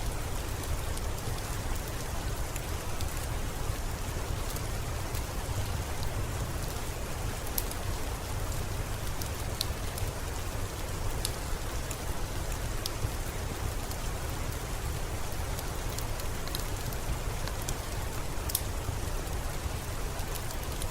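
Steady rain with a low rumble under it, mixed with sparse sharp crackles of a wood fire.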